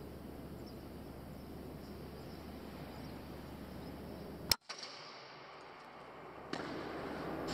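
A single air rifle shot, one sharp crack about four and a half seconds in, over a steady low hum. The background cuts away abruptly right after the shot.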